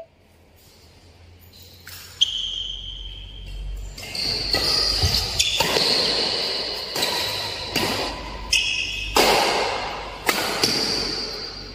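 Badminton rackets hitting a shuttlecock in a fast doubles rally: about ten sharp hits roughly a second apart, starting about two seconds in, each echoing in a large hall, with shoes squeaking on the court between strokes.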